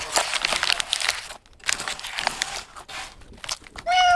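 A paper food wrapper crinkles and rustles as it is handled. Near the end a cat meows once.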